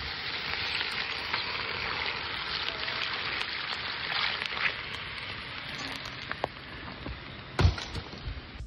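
Water poured from a steel bowl onto a campfire's hot coals and rocks, hissing and crackling as it turns to steam: the fire being put out. The hiss slowly fades, with a dull knock near the end.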